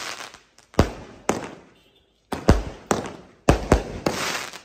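Fireworks going off: about six sharp bangs, some coming in quick pairs, each trailing off in an echo. A crackling hiss follows the last bang near the end.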